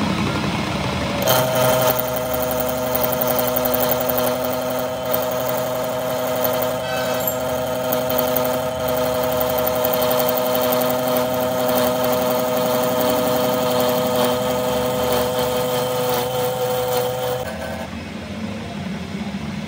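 Metal lathe turning a steel axle shaft, with a steady whine from the cut that sets in about a second in and stops shortly before the end, leaving the lathe running more quietly.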